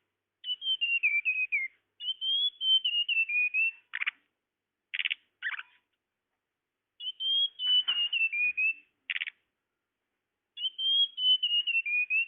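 Tledekan (flowerpecker) luring call: four high twittering phrases of quick notes that step down in pitch, with short harsh, buzzy calls between them.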